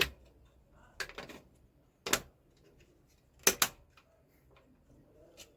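Sharp clicks and light knocks of hard plastic printer parts being handled and snapped into place, about five separate clicks with quiet between them, the loudest a close pair about three and a half seconds in.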